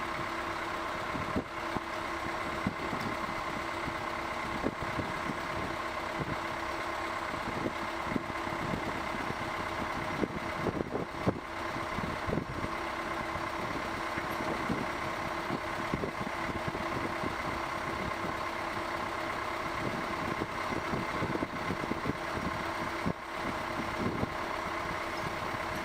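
An engine or machine running steadily, a constant hum with several steady tones. A few knocks and clatters come around the middle.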